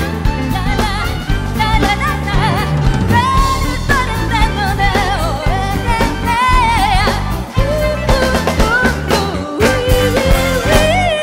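A woman sings live with strong vibrato over a pop band of drum kit, violin and keyboards playing an upbeat arrangement. Near the end she holds a long note as the band comes to a stop.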